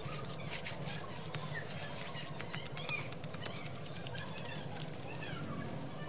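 Birds chirping outdoors: many short, quick calls over a low steady hum, with scattered faint clicks in the first few seconds.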